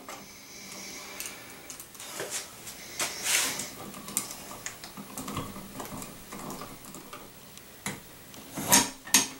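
Insulated wires rustling and scraping in a metal wall electrical box as a switch is removed, with small clicks of a screwdriver. Near the end, a few sharper knocks as a plastic blank cover plate is fitted against the wall.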